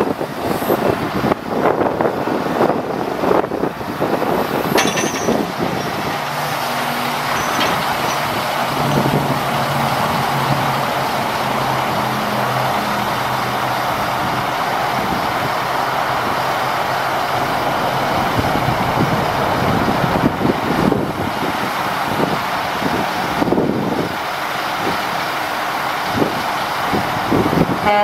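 Caterpillar 3126 diesel engine of a crane truck running steadily, driving the hydraulics of a National N80A articulating crane as the boom unfolds and lifts. A steady low drone grows stronger for several seconds in the middle.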